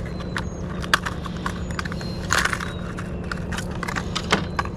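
Handling noises as fishing lures are taken out to be shown: irregular light clicks and knocks, a few of them sharper, over a steady low rumble.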